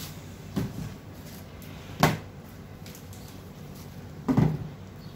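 Food items (bananas, a juice carton, a large plastic water bottle) set down one after another on a metal-topped table, giving three knocks. The second, about two seconds in, is the sharpest and loudest.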